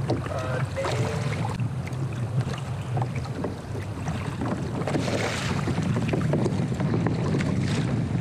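Wind buffeting the microphone in a steady low rumble over water sloshing against a kayak's hull, with scattered small knocks and a stronger wash of water about five seconds in.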